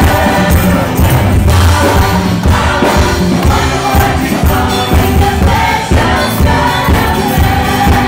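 Gospel choir singing over loud music with a steady beat.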